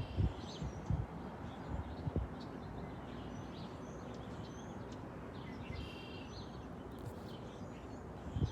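Songbirds chirping and calling, with short high notes scattered through and a brief clearer call about six seconds in, over steady background noise. A few low bumps in the first couple of seconds.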